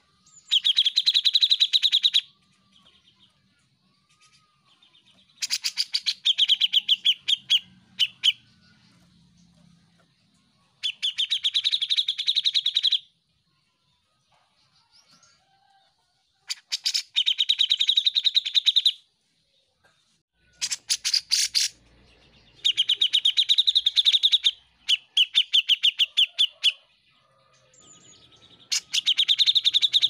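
Grey-cheeked bulbul (cucak jenggot) singing in loud bursts of rapid chattering trills. Each burst lasts about two seconds and comes every few seconds with short pauses between.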